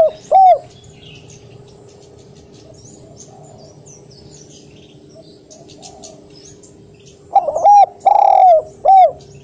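Spotted dove cooing: one short coo note right at the start, then, after a pause, a loud phrase of several coo notes near the end, with a long held note in the middle and a short one to close. Faint chirps of small birds in the pause.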